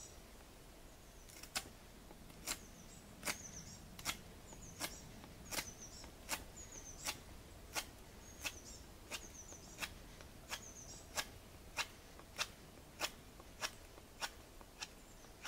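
Knife carving the end of a green hazel spindle: a crisp snick with each stroke, about one every three quarters of a second, starting a second or so in. Birds twitter faintly in the background.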